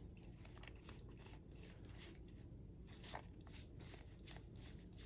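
Faint clicks and swishes of trading cards being flipped through by hand, a few light ticks a second, one a little sharper about three seconds in.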